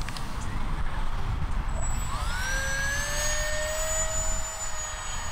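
50 mm electric ducted fan on a 4S battery whining in flight; about two seconds in it spools up, its pitch rising and then holding steady. Wind rumbles on the microphone throughout.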